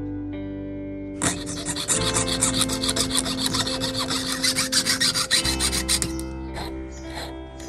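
Jeweller's piercing saw cutting through a 50 euro cent coin of Nordic gold alloy: rapid rasping strokes start about a second in and thin to a few scattered strokes near the end. Guitar music plays underneath.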